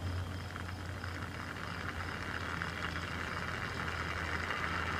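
Small solar-powered electric motor turning a fan impeller, running with a steady whir that builds a little over the first couple of seconds, over a low hum.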